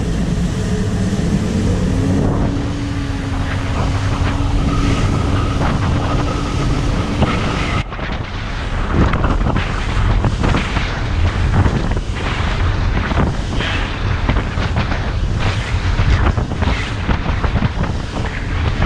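Powerboat running at speed through choppy water: a steady engine hum under heavy wind buffeting on the microphone, with splashing and hull slaps from the spray. About eight seconds in the sound changes abruptly and the slapping and splashing come thick and irregular.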